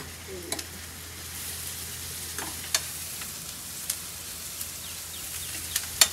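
Onions frying in oil in a steel kadai, a steady sizzle, while a metal spoon stirs and clinks against the pan several times, the loudest clink near the end.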